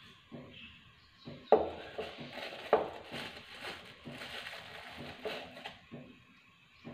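Kitchen handling noises: a plastic storage container and its lid clicking and rattling, with two sharp clicks about a second and a half and almost three seconds in, and light rustling and tapping between them.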